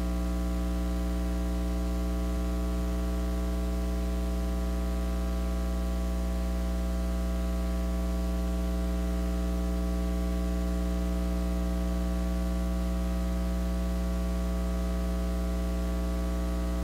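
Steady electrical mains hum: a constant low buzz with a stack of overtones and a faint hiss, unchanging throughout.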